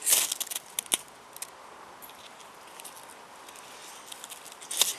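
Steel striker scraped hard down a ferrocerium fire steel, showering sparks onto birch-bark shavings to light them. A sharp rasping scrape at the start is followed by several quicker, shorter strokes, faint ticking through the middle, and another strong scrape near the end.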